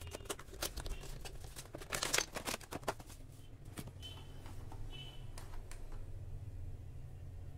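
Cardboard box slid open and a clear plastic packaging tray handled: a run of clicks and rustles, busiest about two seconds in, then sparser, quieter handling.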